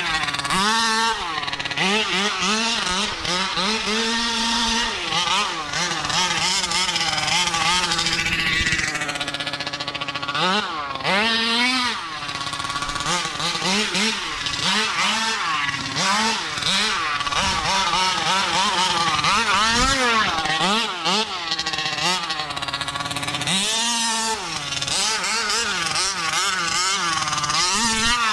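Taylor 50cc two-stroke engine of a 1/5-scale Kraken Vekkta RC truck being driven hard, revving up and down over and over, its pitch rising and falling every second or two as the throttle is blipped.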